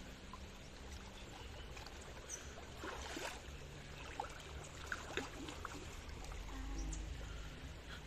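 Shallow river water sloshing and trickling as people wade and pull a net through brush, with a few light knocks and snaps scattered through it.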